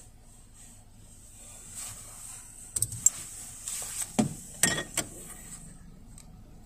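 A quick run of clicks and knocks, from about three to five seconds in, as something is handled inside the car cabin, over a faint steady hum and a thin high whine.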